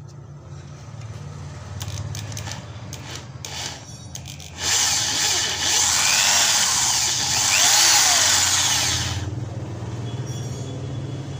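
Cheap two-mode hammer drill boring a masonry bit into a wooden plank. The motor runs fairly low at first with a few clicks, then the bit cuts loudly from about four and a half seconds in to about nine seconds, then the sound drops to a lower level.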